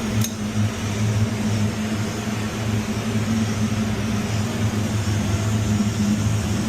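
Steady low mechanical hum with a deeper drone underneath, unchanging throughout, with a single short click just after the start.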